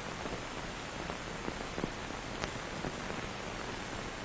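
Steady hiss of an old film soundtrack with a few scattered faint clicks and pops.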